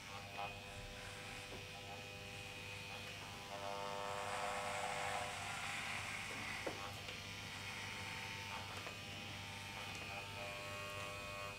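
Corded electric hair clippers buzzing steadily as they shear a man's beard and neck hair, growing louder for a few seconds in the middle.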